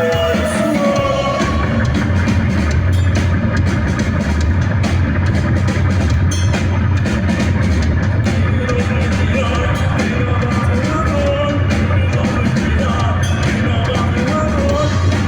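A rock band playing live and loud, with a driving drum beat and heavy bass under the guitars.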